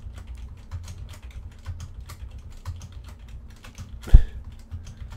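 Computer keyboard keys tapped in quick, irregular strokes as Blender shortcuts are entered, over a low steady hum. About four seconds in there is one louder, dull thump.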